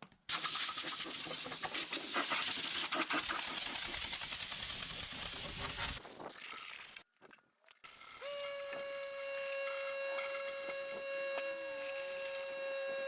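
Compressed air hissing from an air-compressor blow nozzle as dust is blown off a rented floor sander, for about six seconds. After a brief silence, a steady whining tone with overtones takes over.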